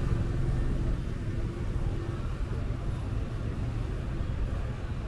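A car passing close by, its engine hum easing off after about a second, over the steady rumble of street traffic.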